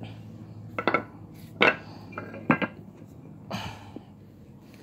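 Loose car lower control arms being handled on a concrete floor: a few sharp metallic knocks and clinks, about one, one and a half and two and a half seconds in, then a brief scrape.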